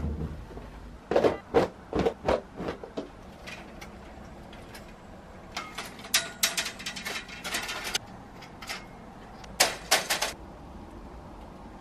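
A folding clothes drying rack being opened out: its metal rails and hinged joints clack and rattle. There are a few separate knocks in the first three seconds, a longer run of rattling clicks about six to eight seconds in, and another short burst near the end.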